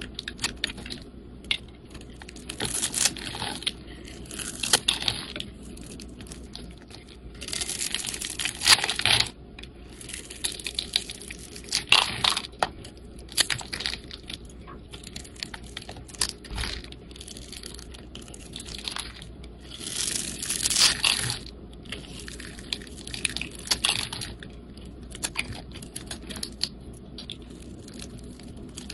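A flat blade shaving, scoring and cutting through hard, dried bars of soap in a series of irregular scraping, crunchy strokes, with small cubes and crumbs breaking off. Some strokes are louder than others.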